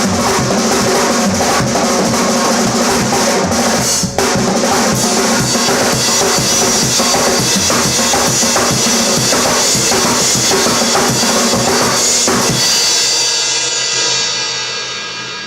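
Drum kit played fast, with bass drum and snare hits under a constant wash of cymbals and a brief break about four seconds in. Near the end the drumming stops and the cymbals ring out and fade.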